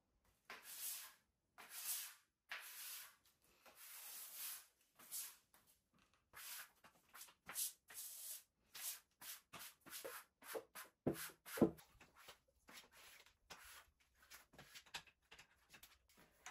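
Rubber-bristled Sseurijalbi broom sweeping hair across a bathroom tile floor: a run of scraping strokes, slow and long at first, then quicker and shorter, about two a second. Two sharper knocks, the loudest sounds, come a little past the middle.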